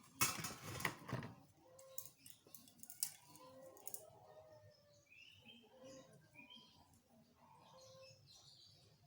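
Faint birds chirping, short repeated calls at several pitches. A brief rustling noise comes in the first second.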